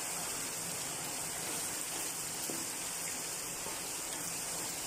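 Sliced onions and quartered shallots frying in hot oil in a wok, a steady sizzle.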